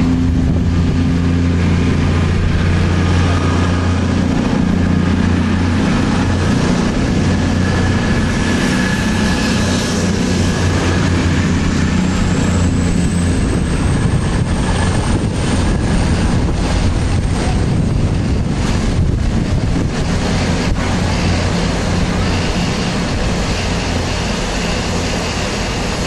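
Standing steam locomotive, the Peppercorn A1 Pacific 60163 Tornado, idling with a steady low hum under a continuous steam hiss. A faint high whine rises about twelve seconds in and then holds.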